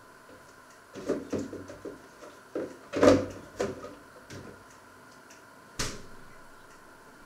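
Kitchen handling noises: a run of knocks and clatters, like cupboard doors and utensils being handled, starting about a second in and loudest about three seconds in, then a single sharp click near the end.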